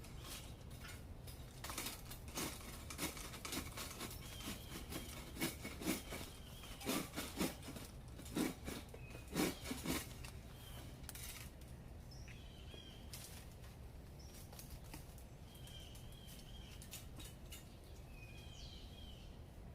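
Irregular rustling and sharp clicks for several seconds, then short high bird chirps repeating over a steady low background.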